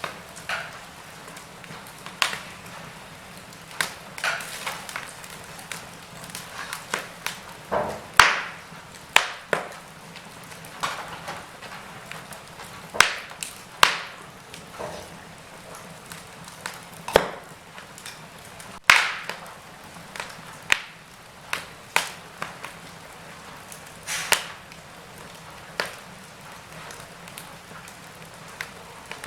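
Wood fire in a fireplace crackling: a steady soft hiss with sharp, irregular pops and snaps, some louder than others.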